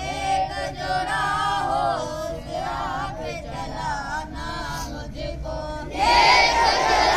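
Schoolboys chanting a dua (prayer) in call and response: a few boys' voices lead a line in a melodic chant, then the whole assembly joins in loudly about six seconds in.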